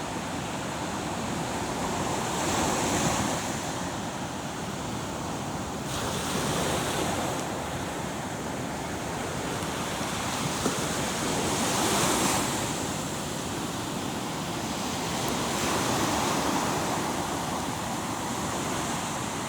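Ocean waves washing onto a shore, the surf swelling and easing back every few seconds.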